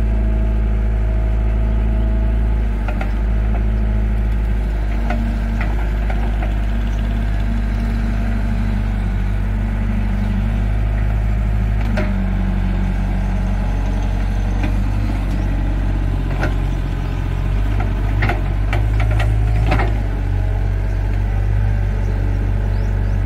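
Hitachi hydraulic excavator's diesel engine running steadily under working load as the boom and bucket move through mud, its note rising and falling slightly. A sharp knock about halfway through and a cluster of knocks near the end.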